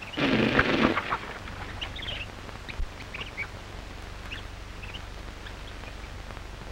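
A loud, harsh, rasping burst of just under a second near the start, then faint scattered bird chirps over the steady hum and hiss of an early sound-film track.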